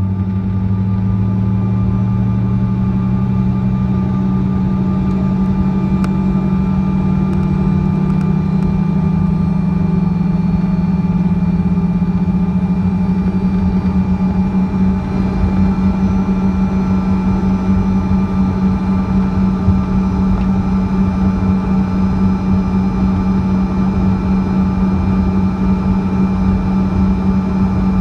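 Bombardier CRJ-200's rear-mounted General Electric CF34 turbofan engines running, heard from inside the passenger cabin as a steady loud hum. A lower tone climbs in pitch over the first ten seconds or so, and from about halfway on the hum throbs as the two engines' tones beat against each other.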